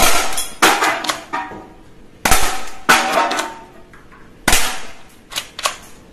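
Toy pistol firing about seven shots, mostly in quick pairs, each a sharp crack with a short ringing tail, as aluminium cans are hit and knocked off a stack.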